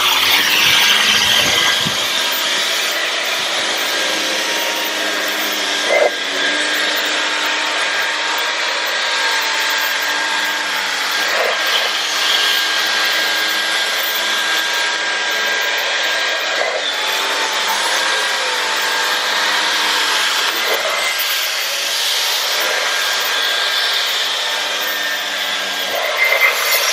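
Dyson V11 Torque cordless stick vacuum running at full power in boost mode, vacuuming a fabric couch: a steady, loud motor whine whose pitch shifts slightly every few seconds as the head is worked over the cushions.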